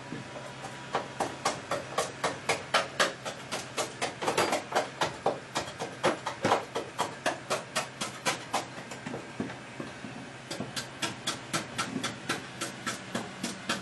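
A hand tool striking and chipping old sound-deadening material off the steel floor pan of a 1974 BMW 2002, in rapid sharp strikes about three a second. The strikes pause briefly about nine seconds in, then resume.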